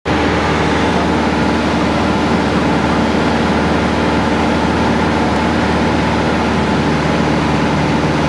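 Light propeller aircraft's piston engine running at steady cruise power, heard from inside the cabin as an unbroken drone with rushing air noise over it.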